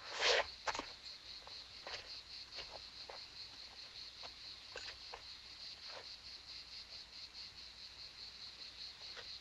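Crickets chirping steadily in a fast, even high pulse. A short scuffing noise at the very start is the loudest moment, and a few faint taps are scattered through.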